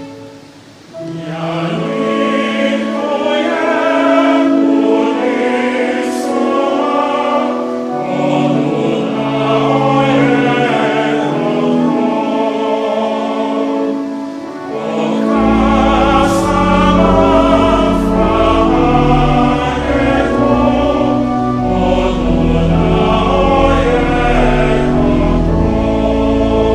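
Choir singing over background music, with long held, wavering notes; a deep bass part comes in about halfway through.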